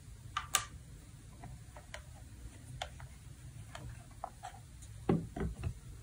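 Faint scattered clicks and taps of a Casio VX-4 pocket computer's plastic case being handled and turned over. A few louder knocks come about five seconds in as it is set down on the table.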